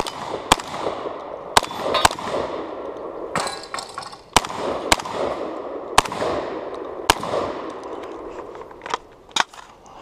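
Fostech Origin 12 semi-automatic 12-gauge shotgun firing a stage: about seven loud shots at uneven spacing, each with a long echoing tail, and lighter clicks and clatters between them.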